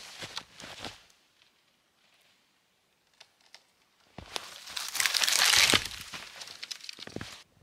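Crunching and rustling of footsteps through snow and spruce brush: a short scuffle of cracks at the start, then a longer run of crunching steps from about four seconds in, loudest a little past the middle.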